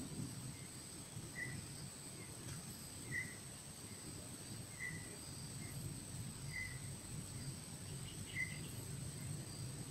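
Riverbank insect chorus: a steady high-pitched drone of insects, with a short chirp repeating five times at an even pace, about every second and three-quarters, over a faint low rumble.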